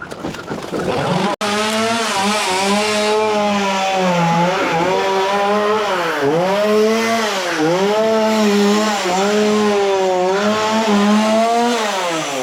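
Chainsaw engine running at high revs while cutting a melaleuca (paperbark) trunk. Its pitch dips several times as the chain bites and loads the engine, then recovers, and it falls away near the end.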